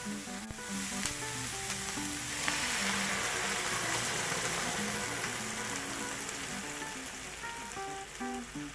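Food sizzling and frying in a hot pan, the sizzle swelling about two and a half seconds in, with a few sharp clicks from stirring. Soft background music with plucked notes plays under it.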